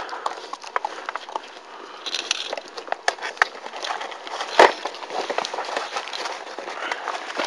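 Newfoundland puppies eating from a food bowl: scattered small clicks and crunches, with one louder knock about halfway through.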